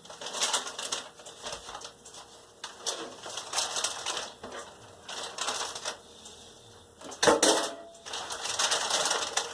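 Intermittent scratchy rustling and clatter from handling food and kitchen things, in short bursts with a louder one about seven seconds in.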